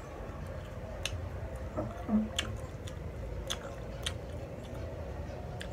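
A person chewing food close to the microphone, with about five sharp mouth or utensil clicks spread through and a short low tone about two seconds in, over a steady low hum.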